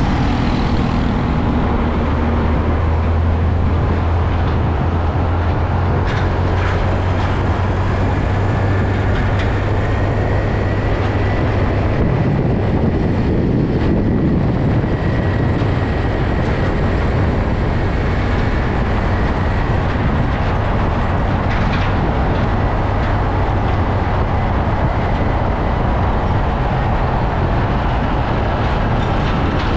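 Close-up road traffic: a heavy semi truck with a container trailer rolling past, its diesel engine giving a steady low drone under the rumble of its many tyres on the asphalt. The rumble swells about halfway through as the trailer's wheels go by.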